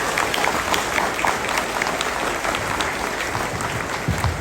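Audience applauding: many hands clapping at once, steady and lively, as the ambassador is introduced.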